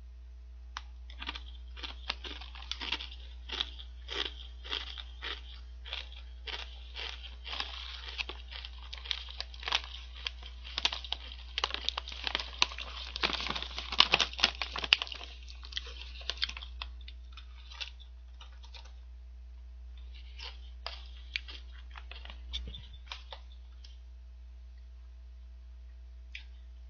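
Chewing a mouthful of kettle-cooked potato chips: a quick run of crisp crunches that gets denser and loudest about halfway through, then thins to a few scattered crunches, with the snack bag crinkling.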